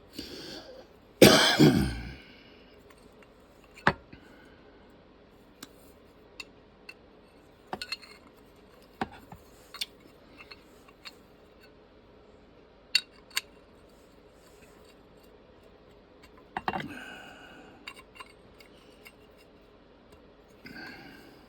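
Scattered light clicks and taps, with a louder short noise about a second in and two more near the end.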